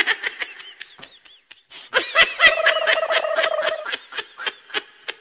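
High-pitched giggling laughter in quick bursts. It dips about a second in, comes back loudest around two seconds in with one long held note, and fades near the end.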